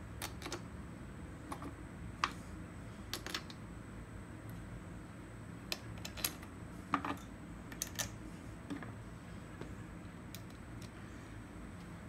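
Metal bolts clicking and ticking against the crankcase as they are set in their holes and turned finger-tight by hand: a dozen or so light, irregular clicks over a low steady hum.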